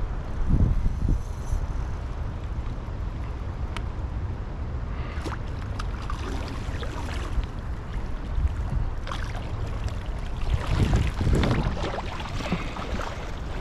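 Wind buffeting the microphone, then water splashing and sloshing from about five seconds in, heaviest near the end, as a hooked brown trout is brought in.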